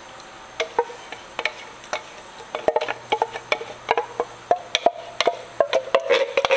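A metal can of crushed tomatoes being knocked repeatedly to shake out the last of its contents: a run of sharp knocks that come faster from about halfway, with a ringing tone after them.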